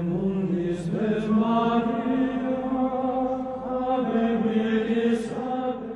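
Slow, chant-like singing with long held notes that move from pitch to pitch, with a few soft sibilant consonants.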